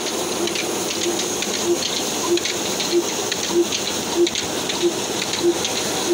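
Belt-driven cotton opening machine (painja) running with a steady rushing hiss as cotton is fed in, over an even beat about every 0.6 s from the slow old Ruston Hornsby diesel engine that drives it.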